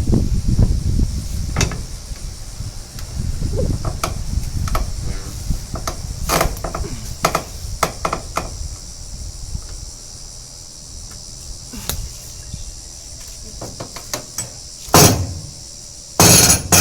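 Metal knocks and clanks of a breaker bar and pipe working on a mini excavator's hydraulic cylinder, ending in two short, loud bangs near the end. Insects chirp steadily in the background.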